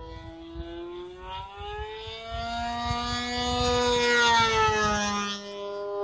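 OS .55AX two-stroke glow engine on an RC plane, with a Pitts-style muffler and a 13x6 prop, screaming past at high speed: its pitch rises as it comes in, it is loudest about four seconds in, then the pitch drops as it goes by. Wind buffets the microphone in the first half.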